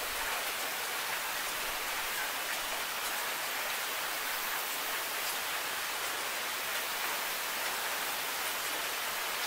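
Steady rain falling: an even, unbroken hiss with a few faint ticks of single drops.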